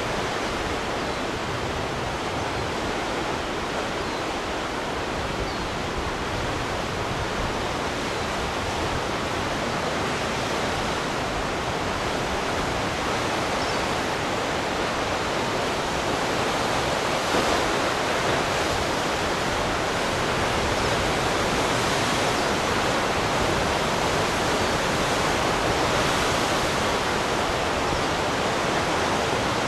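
Steady rushing of running water, an even hiss without breaks or surges that grows a little louder in the second half.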